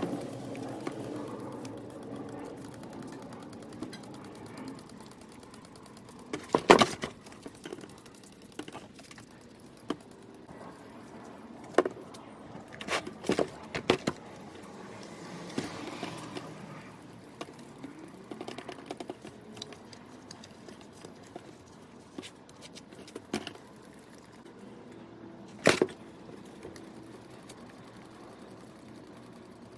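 Scattered sharp clinks and knocks of metal vise parts and tools being handled on a workbench, about half a dozen hits spread out over a faint steady background, with a small cluster about halfway through.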